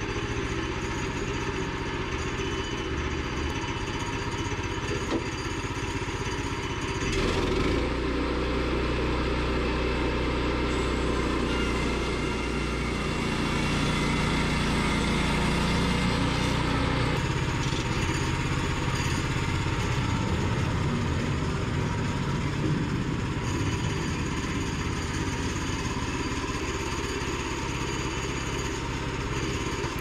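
Woodland Mills HM122 bandsaw mill running, its engine under load and its band blade cutting lengthwise along a board; a steady mechanical drone that deepens about seven seconds in and eases again about seventeen seconds in.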